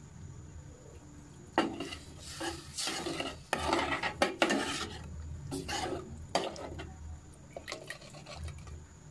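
Metal ladle stirring chicken balls in broth in a stainless steel pot, clinking and scraping against the pot's sides with liquid sloshing. The stirring starts about a second and a half in and stops near the end.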